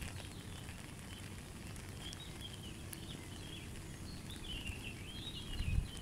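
Light rain pattering on a lake's surface under a steady outdoor hiss, with a small bird chirping and twittering from about two seconds in, busiest near the end. Low wind rumble on the microphone swells just before the end.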